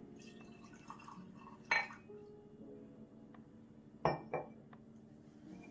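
Liquid poured from a glass wine bottle into a small drinking glass, with sharp glass knocks on a stone countertop: one about a third of the way in and two close together about 4 seconds in as the bottle is set down.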